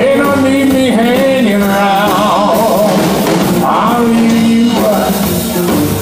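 Live blues-rock band playing: electric guitar with bending notes over bass guitar and drum kit.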